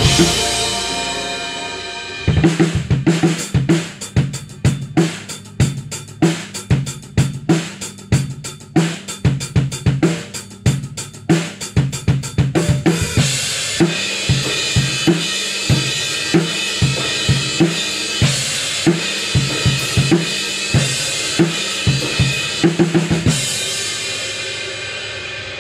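Yamaha Stage Custom drum kit with Zildjian K Custom cymbals being played. A kick-and-snare groove comes in about two seconds in, cymbals wash over the beat from about halfway, and a fill near the end gives way to cymbals ringing out and fading.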